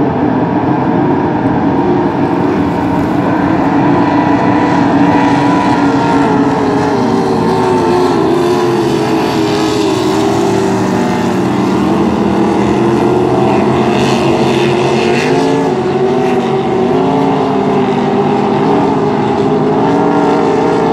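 Engines of several racing powerboats running at speed together, their pitches rising and falling against one another, with one boat passing close about halfway through.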